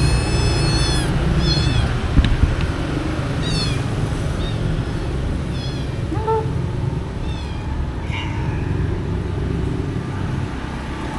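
Stray cats meowing, a string of short high-pitched cries every second or two, over a steady low hum of market background noise, with a sharp click about two seconds in.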